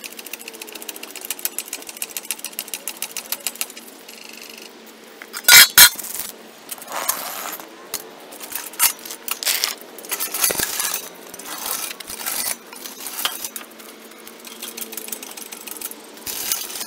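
Steel lifting chain of a shop crane clinking and clanking against a transmission hung from the hook. It begins with a run of rapid, even ticks for about four seconds. Two loud metal bangs come a little over five seconds in, followed by scattered clanks as the loaded crane is moved across the concrete.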